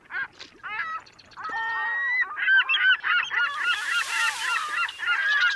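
Waterfowl honking and calling over one another, sparse at first and then in a dense, continuous chorus from about a second and a half in. A hiss of noise joins about halfway through.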